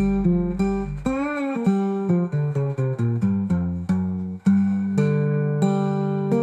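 Instrumental guitar music: a run of single plucked notes, one of them bent and wavering about a second in, then a held chord ringing from about halfway.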